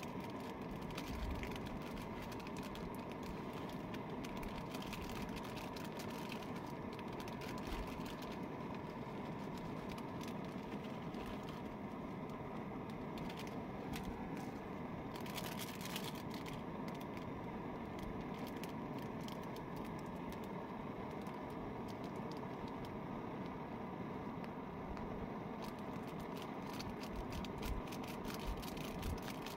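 Portable gas camping stove burning steadily under a pot, with scattered light clicks of a spoon against the pot.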